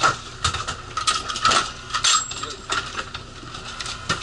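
Hard objects clinking and knocking as luggage and gear are handled: about seven sharp metallic clicks and clatters, irregularly spaced, the loudest near the start and around the middle.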